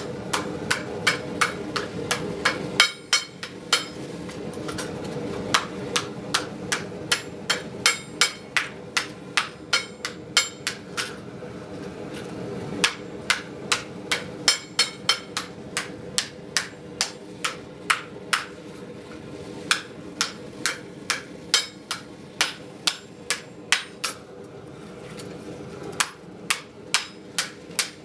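Blacksmith's hand hammer with a rounded face striking a red-hot metal frying-pan blank held in tongs over a round block, shaping the pan. Runs of steady ringing blows, about two to three a second, with short pauses between runs.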